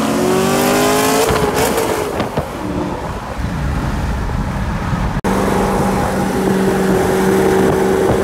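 V8 engines at full throttle in a roll race from about 40 mph, heard from inside one of the cars: the engine pitch climbs steadily, breaks about a second in at a gear change, and runs on rougher. About five seconds in, the sound cuts to a steady engine drone at cruising speed.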